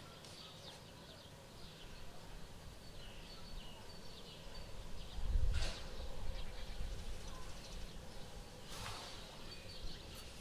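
Kitten mewing faintly now and then, with a soft bump about halfway through as it clambers about in a small pet bed.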